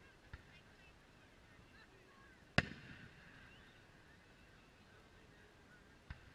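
Distant aerial fireworks shells bursting: three sharp booms, a faint one just after the start, the loudest about two and a half seconds in followed by a short rolling echo, and another near the end.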